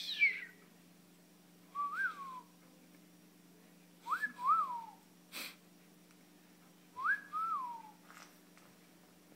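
Short whistled phrases of one or two notes, each rising then falling in pitch, about every two to three seconds, with a few soft clicks in between.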